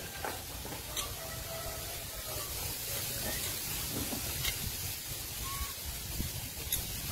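Steady outdoor background hiss, with a few faint ticks and brief faint distant calls.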